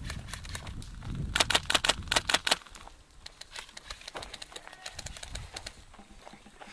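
Airsoft rifle firing a rapid burst of about ten shots a second, starting about a second and a half in and lasting roughly a second. Fainter scattered single shots follow.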